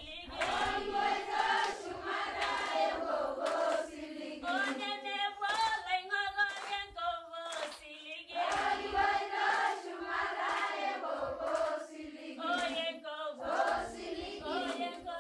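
A group of young preschool children singing together in unison, a chanted song with the pitch rising and falling throughout.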